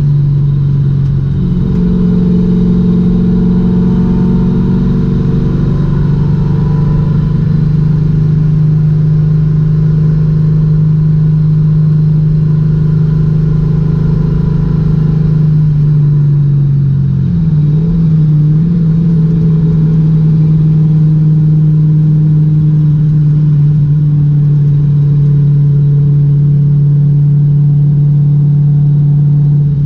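V8 engine of a Porsche 968 race car, heard loud from inside the cockpit, running hard at a fairly steady high pitch on track, with a brief dip in the engine note a little past halfway.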